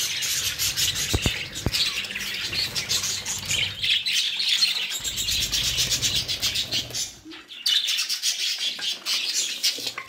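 A flock of budgerigars chattering: many fast, high chirps and warbles overlapping without a break, easing off briefly about seven seconds in.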